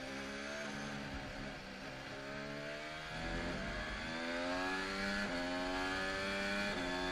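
Onboard sound of a 2021 Red Bull-Honda Formula 1 car's 1.6-litre turbocharged V6. The engine note falls for the first second or so, then rises again from about three seconds in and shifts in steps through gear changes a few seconds apart.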